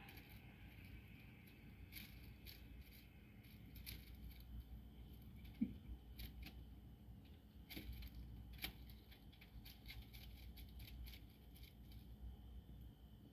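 Very faint, scattered rustles and small clicks from a crinkly foil-bow cat toy on a wand as a cat bats at it, over a low steady rumble.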